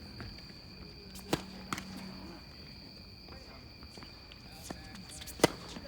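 Sharp tennis ball impacts on a hard court: two loud cracks about four seconds apart, the second the loudest, with lighter ticks and footsteps between them. A steady high-pitched hum runs underneath.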